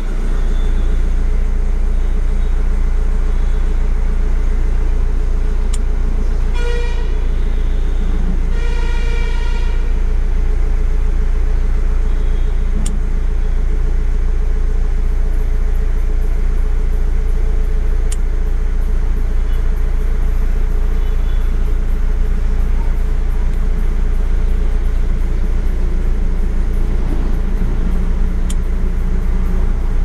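Hyundai i20 engine idling steadily, heard from inside the cabin, running cold just after starting. A car horn toots twice, briefly, about seven seconds in and again about a second and a half later, the second toot a little longer.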